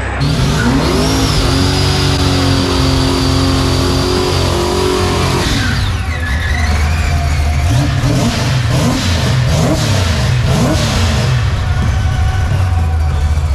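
Street-bodied drag race car accelerating hard down the strip, engine pitch climbing at the start and holding high, then dropping when it lifts off about five and a half seconds in, followed by more rising and falling revs as it slows.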